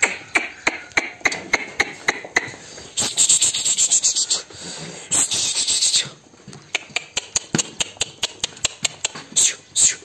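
A small flock of sheep jostling and feeding, giving a run of quick clicks and knocks with two spells of rustling about three and five seconds in.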